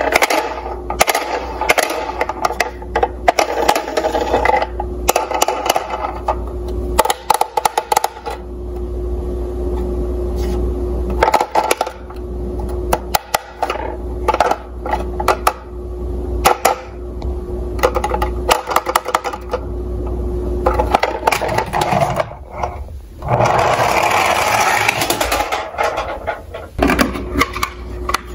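Plastic toy police cars being handled and knocked against one another in a cardboard box: irregular clicks, taps and scrapes, with a few seconds of denser rustling noise near the end.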